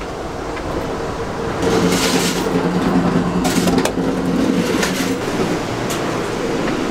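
Running noise of a moving Amtrak Superliner train heard from inside the cars: a steady rumble and hiss with a low multi-tone hum. It grows louder for a few seconds, from about one and a half seconds in, with sharp clicks and clatter as the passage through the door between cars is crossed.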